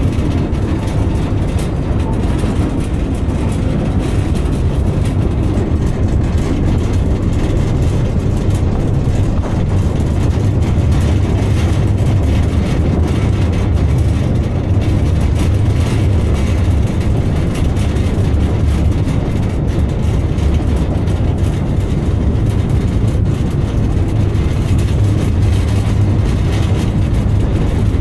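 Narrow-gauge train running steadily, heard from an open-top wagon: a continuous low rumble.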